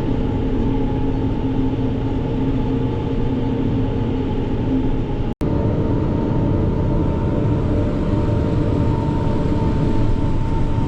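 Tractor pulling a pull-type forage chopper, running steadily at working speed while chopping corn silage: an even engine drone with a steady whine from the machine.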